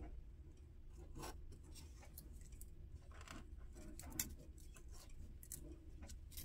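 Faint rustles and a few soft separate ticks of paper stickers and washi tape being handled on a planner page with a small metal tweezer-like tool, over a low steady room hum.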